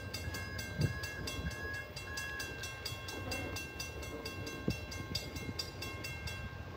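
Railroad grade-crossing bell ringing in quick, even strokes, about six a second. It stops just before the end.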